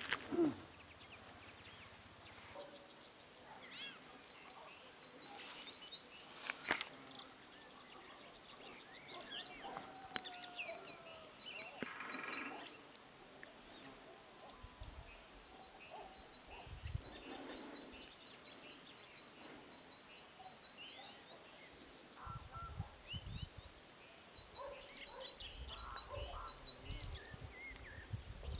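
Faint songbirds singing and chirping across open fields, including a repeated high trill that comes and goes. There are a few sharp clicks early on, and some low rumbles near the end.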